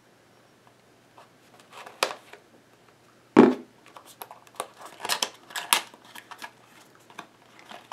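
A cardboard processor box being opened by hand: a sharp click, then a loud thump a few seconds in, followed by a quick run of cardboard and plastic clicks and rustles as the plastic insert is worked out of the box.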